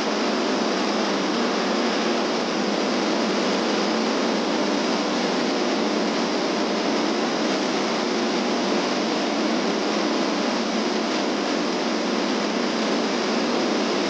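Steady rush of a small waterfall and rocky mountain stream.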